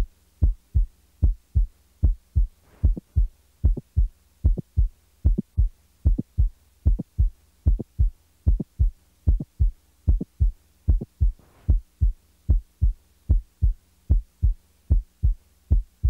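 Heart sounds heard through a stethoscope: a steady lub-dub rhythm of first and second heart sounds over a faint hum. A mid-systolic click is brought in between them and then taken away again; such a click is most commonly caused by mitral valve prolapse.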